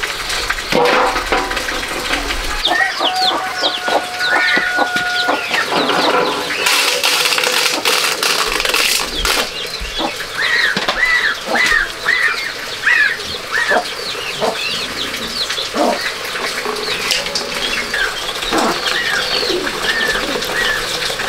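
Farmyard chickens clucking and birds chirping, with a quick run of short rising-and-falling chirps about ten seconds in. Occasional knocks and clatter are mixed in.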